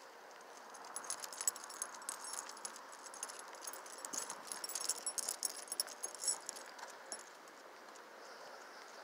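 Footsteps of someone walking on pavement, with a light metallic jingling and clicking that is loudest between about one and seven seconds in, then fades.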